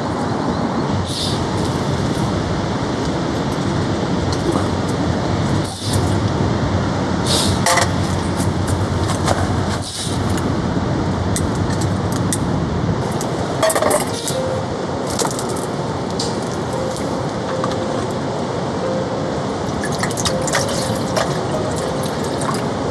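Steady hiss of heavy rain falling on a tarp, with scattered light metallic clinks and taps of camp cookware.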